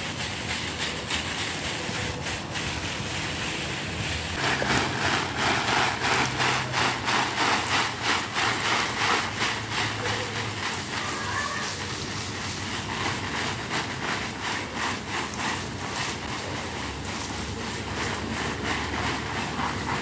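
Water spraying from a garden hose onto leaves and soil: a continuous splashing hiss that grows louder and flutters in quick pulses for several seconds in the middle, then settles back to a steady spray.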